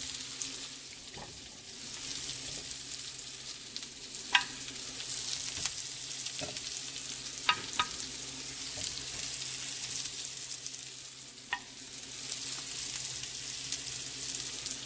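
Onions and garlic sizzling steadily in hot oil in a frying pan, with a few sharp ringing clinks of a utensil against cookware, two of them close together near the middle.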